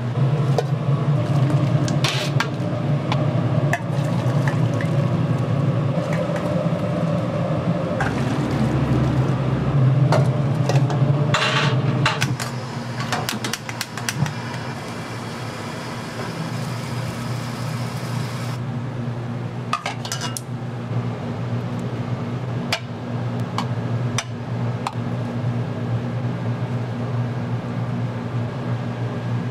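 Dishes and metal utensils clinking and clattering over a steady low hum, busier and louder for the first twelve seconds or so.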